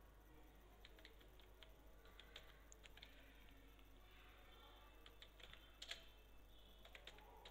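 Faint keystrokes on a computer keyboard, typed in an irregular run of clicks, with one louder key press about six seconds in.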